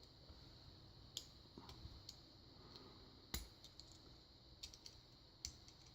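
Faint, scattered clicks and taps of a Euro cylinder lock and its key being handled, with one sharper click a little past halfway.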